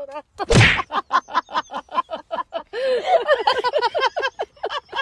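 A rapid string of short, squeaky vocal sounds, about five a second, after a louder burst about half a second in.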